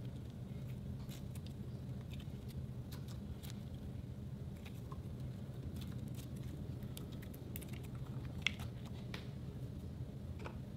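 Clear slime with small beads mixed in, squeezed and stretched between the fingers: scattered small clicks and pops, with one louder click about eight and a half seconds in, over a steady low hum.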